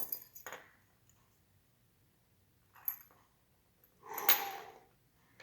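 A few light metallic clicks of small lock parts being handled, with a short louder scrape or rustle about four seconds in.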